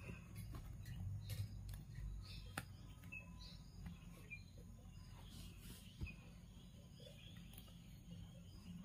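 Faint handling of macrame cord: soft rustling and a few light clicks as the cord is pulled and knotted around a metal ring. Faint short chirps come now and then.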